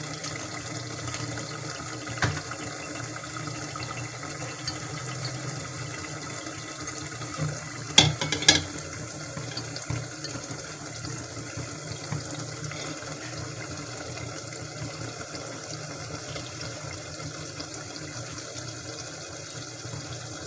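Steady hiss from the stove and the pan of korma masala cooking on it, with a few short knocks about 2 and 8 seconds in.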